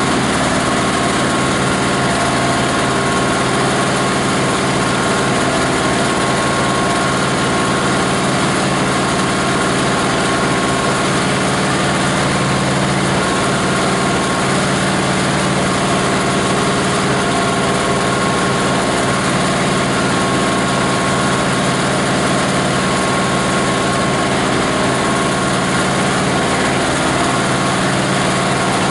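The grinder's 18 HP diesel engine running steadily at a constant speed, driving the grinder, with no change in pitch or load.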